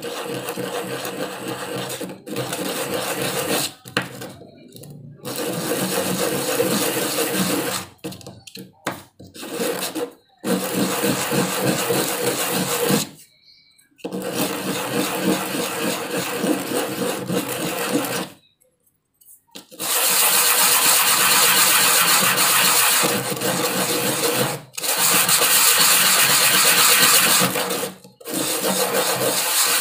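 Hand sanding: a small piece of angsana (sono kembang) wood rubbed back and forth on a sheet of sandpaper to round off its sharp edges, a steady scraping hiss. The sound comes in stretches of a few seconds and breaks off abruptly several times.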